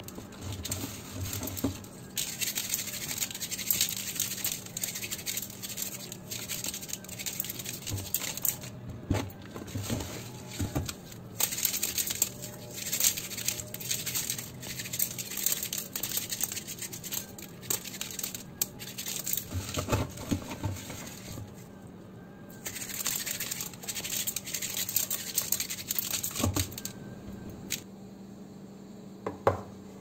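Lemons scrubbed by hand with coarse Himalayan salt in a plastic tub: gritty scratching and rubbing in spurts, with a few sharp knocks. The scrubbing stops near the end.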